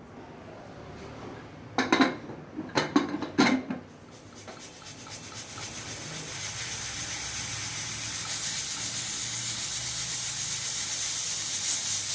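A few metal clatters as the pressure cooker lid is set on and closed, then a hiss of steam from the cooker that grows steadily louder as it comes up to pressure on the flame.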